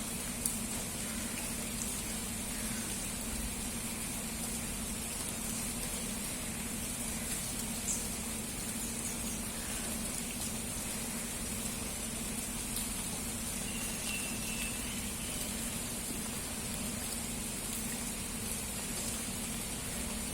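Steady rain pouring, with a few sharper drop strikes now and then and a brief bird chirp about fourteen seconds in.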